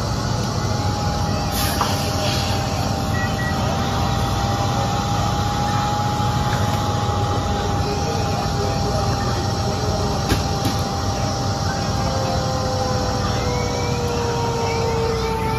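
A fire engine's diesel engine running steadily, with a steady high whine over it and a few sharp knocks, the loudest about ten seconds in. Near the end a second, lower tone slides slowly downward.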